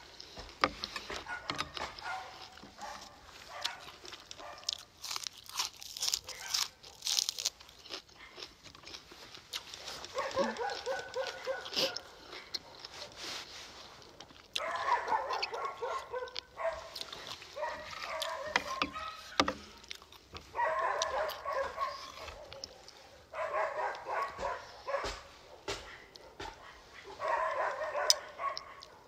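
Crunchy chewing and cutlery clicks over the first third. Then a dog whining in repeated drawn-out spells of a second or two each.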